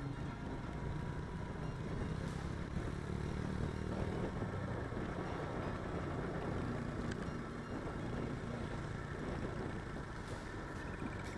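Motorcycle engine running steadily at road speed, heard from the moving bike together with wind and road noise.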